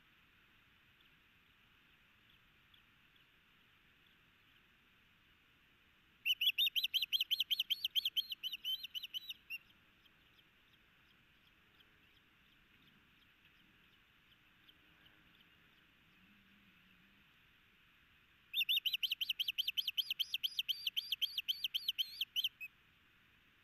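Osprey giving two runs of rapid, high whistled chirps, each lasting three to four seconds, with a long pause between, over a faint steady hiss.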